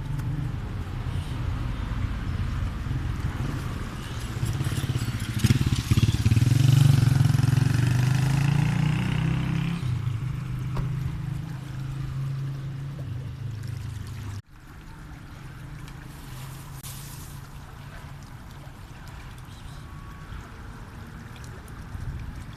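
A motor vehicle's engine running close by, growing louder and shifting in pitch as it passes, loudest about six to nine seconds in, then fading. After a sudden cut there is steadier, quieter street noise.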